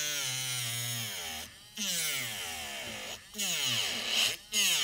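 Hot air rework gun blowing on the phone's board to lift the shield over the audio section: a steady hiss with a motor whine that falls and rises in pitch several times.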